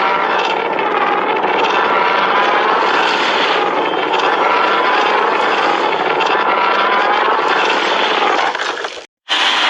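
Long, loud kaiju roar sound effect from a Godzilla film: a harsh, grating cry whose pitch bends slowly. It cuts off about 9 seconds in, and after a brief gap another roar starts near the end.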